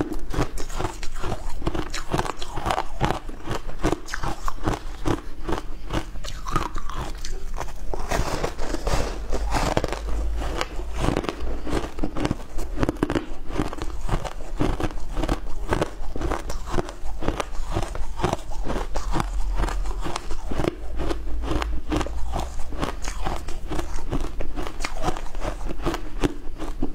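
Close-miked crunching and chewing of frozen shaved ice: a continuous run of crisp crunches, several a second, without a break.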